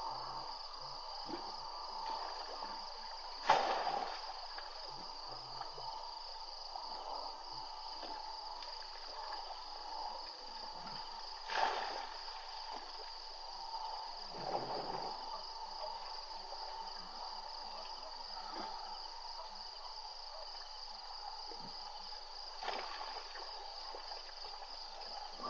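A steady evening chorus of insects, with a continuous high trill and a lower hum. Four brief knocks or thumps cut in at irregular intervals, the loudest a few seconds in.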